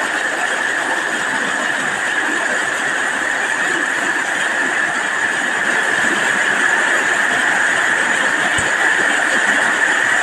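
Heavy rain pouring down steadily, an even, dense hiss.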